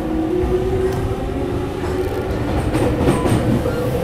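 E231 series 500-number electric commuter train pulling away from a station, heard from inside the car: the traction motors and VVVF inverter give a whine that rises in pitch as the train picks up speed over a low running rumble. A few wheel clacks over rail joints come near the end.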